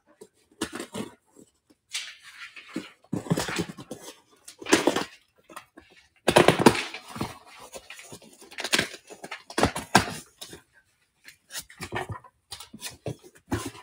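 Utility knife slicing the packing tape on a cardboard box, then the flaps being pulled open and paper inside rustling, in irregular scratchy bursts.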